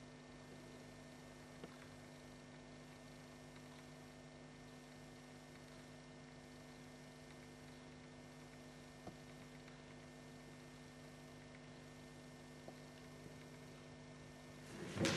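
Steady low electrical hum of room tone, made of several fixed tones, with a few faint clicks. A sudden loud burst of noise right at the end.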